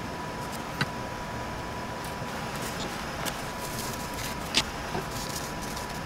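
Steady hum of rework bench equipment with a faint constant whine, and a few light clicks and taps of a soldering iron and desoldering wick being handled and set down. The sharpest tap comes about four and a half seconds in.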